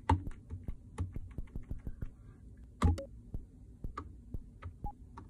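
Plastic pads and step buttons of an Arturia BeatStep Pro clicking as a drum pattern is keyed in, about three presses a second, some with a dull thud. Near the end, faint short pitched blips start as the pattern begins to play through the YM3812 FM sound chips.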